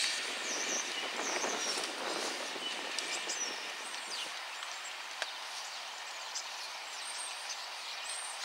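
Class 56 diesel locomotive hauling coaches away into the distance, its rumble fading out about four seconds in. Birds chirp over the leftover background hiss.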